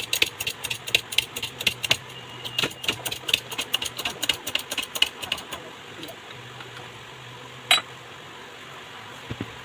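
Ceiling fan ticking in a steady rhythm as it turns, about three clicks a second, over a low hum; the ticking stops about five and a half seconds in. A single sharp click follows near the end. The ticking is the fan's sound problem.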